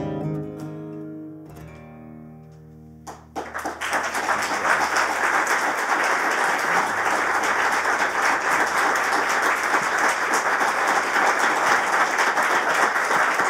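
An acoustic guitar's last chord ringing and fading, then an audience breaking into applause about three seconds in, the clapping staying loud and steady.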